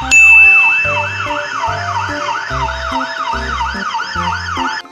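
Police car siren on a fast yelp, its pitch rising and falling about three times a second.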